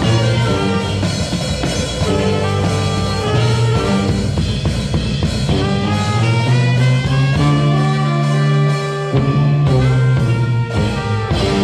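A live brass band with rock backing playing an instrumental: a sousaphone bass line, trumpet and saxophone over electric guitar and drum kit.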